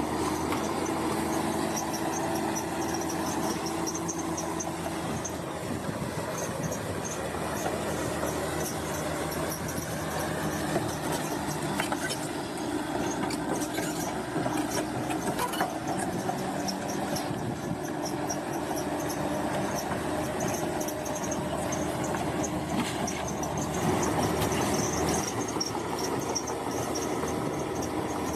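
Bulldozer's diesel engine running steadily under load, with the steel tracks squealing in a high, pulsing tone and clanking as the machine works.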